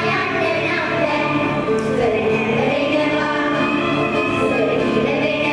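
A group of girls singing together into microphones, amplified through a PA, over a steady instrumental accompaniment.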